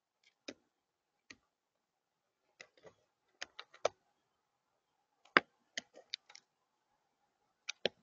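A crow at a tray feeder, making sharp, irregular clicks and taps, some in quick runs of three or four, with the loudest a little past halfway.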